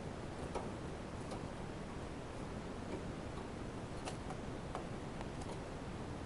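Irregular light clicks and taps, a few seconds apart, over a steady background hiss.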